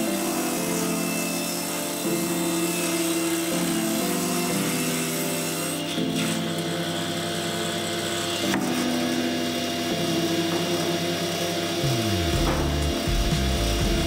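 Table saw ripping a celery-top pine plank lengthwise, a steady cutting hiss as the board is fed through the blade.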